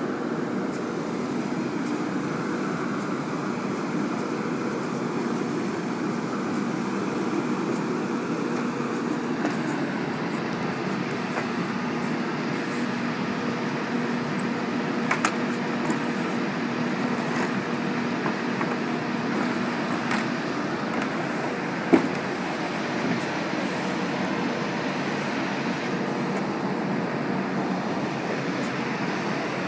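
Steady drone like a running engine, with a held hum through the middle; a few light clicks about halfway, then one sharp knock.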